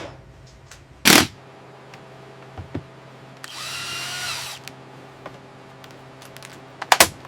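Power drill whirring for about a second midway, its pitch rising as it spins up, then holding. A loud sharp knock about a second in and a quick double knock near the end, over a steady low hum.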